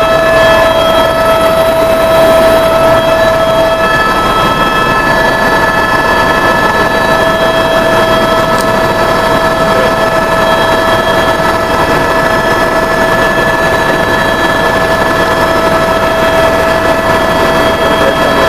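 Aircraft engines at takeoff power: a loud, steady noise with a steady high whine on top.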